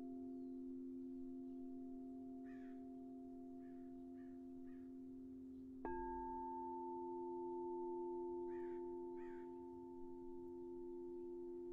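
Crystal singing bowls ringing with several steady, overlapping tones. About six seconds in, a bowl is struck, adding a brighter, higher ringing tone over the sustained hum. Short bird calls sound faintly in the background a few times.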